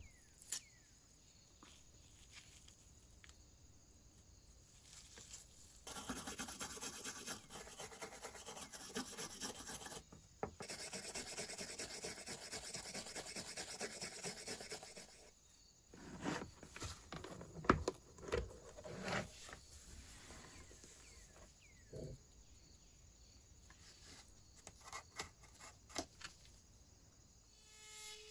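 Small brass wire brush scrubbing rust off a steel scissor blade. It starts about six seconds in and goes on for about ten seconds, with a brief break. Light clicks and knocks of the metal parts being handled come before and after, and a small rotary tool starts up with a steady whine at the very end.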